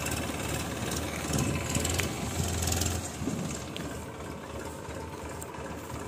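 Massey Ferguson 7250 DI tractor's diesel engine running under load, driving a tractor-mounted Satnam mini combine harvester as it cuts mustard; a steady machine din that eases off a little about three seconds in.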